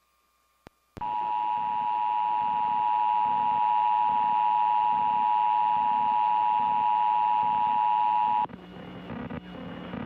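Emergency Alert System attention signal: two steady tones of about 853 and 960 Hz sounded together, starting about a second in after a single click, held for about seven and a half seconds, then cutting off suddenly. It signals that the alert system has been activated, here for a test.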